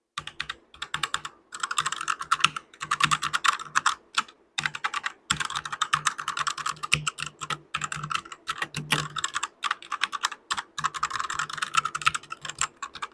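Fast typing on a Portronics Hydra 10 60% mechanical keyboard with red switches: a dense run of key clicks, broken by a few brief pauses.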